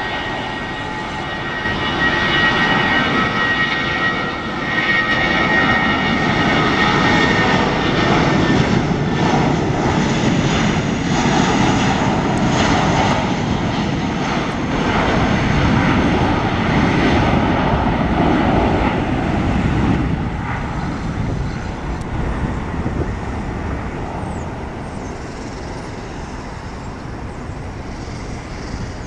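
Airbus A320-232's twin IAE V2500 turbofans at takeoff thrust. The engine whine with steady high tones at first builds into loud jet noise as the airliner rolls past on its takeoff run, then fades gradually from about 20 seconds in as it climbs away.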